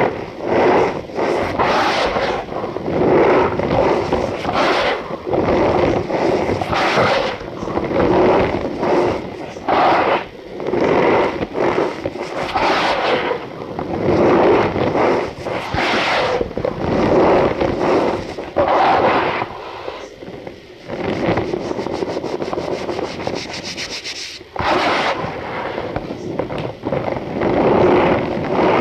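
Compacted cornstarch balls being crushed, giving a squeaky, crunching creak. It comes in repeated squeezes about once a second, with a couple of brief pauses.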